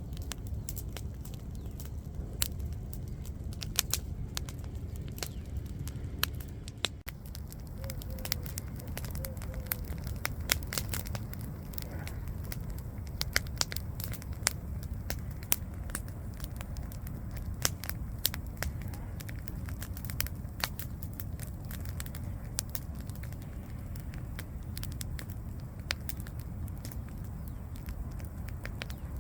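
Campfire burning: a steady low rush of flames under frequent, irregular sharp pops and crackles from the burning wood.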